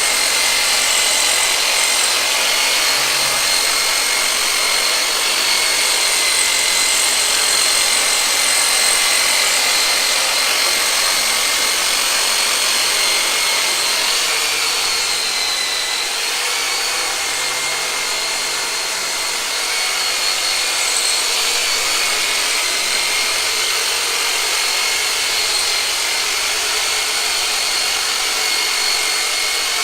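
Black & Decker electric saw re-rigged as a massage tool, a plastic cat toy in PVC pipe on its blade, running steadily with a high whine whose pitch dips slightly about halfway through. It is being worked over tight back muscles to loosen them.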